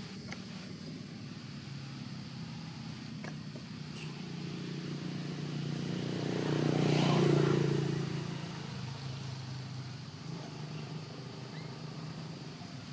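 A motor vehicle passing by: its engine hum grows louder to a peak about seven seconds in, then fades away.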